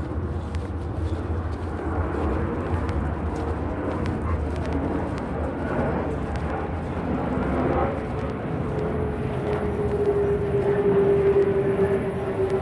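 Engine drone over a low rumble: from about eight seconds in, a single steady tone grows louder and slowly falls in pitch, as a passing engine does.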